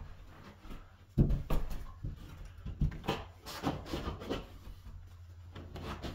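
Carpet power stretcher being handled and repositioned on carpet against a wall: a thud about a second in, then scattered light knocks and rustling as the carpet edge is worked by hand.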